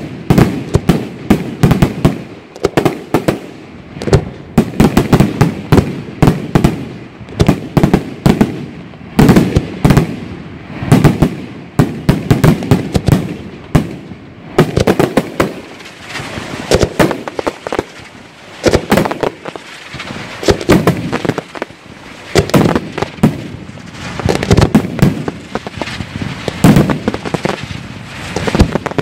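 Italian aerial fireworks display: shells bursting in quick succession, a dense, loud string of sharp bangs, several a second, with no pause.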